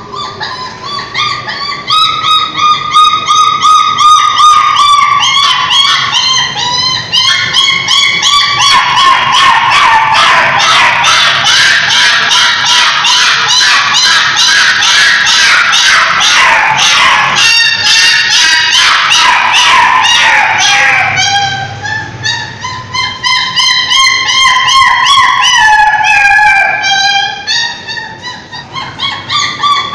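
A puppy whining and crying in long high-pitched wails that slide up and down, breaking into fast, repeated yelps through the middle, then back to drawn-out whines near the end.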